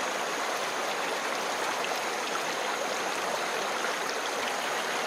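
Shallow forest stream running over rocks: a steady rushing of water, with a thin, steady high-pitched tone above it.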